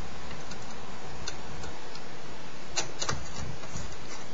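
Light metallic clicks and ticks of small screws and a screwdriver against a hard drive's metal mounting frame while screws are fitted, a few faint ones and then a cluster of several about three seconds in, over a steady hiss.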